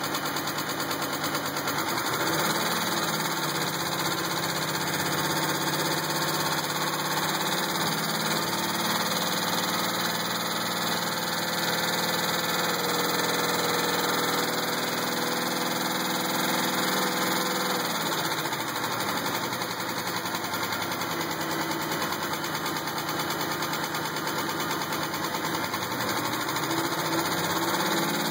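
Supercharged 3.8-litre V6 of a 2000 Pontiac Grand Prix GTP running with a knock. The revs rise about two seconds in, hold, ease back about eighteen seconds in, and rise again near the end. The knock stays about the same whatever the revs; the owner doubts it is the flex plate and thinks it might be a spring.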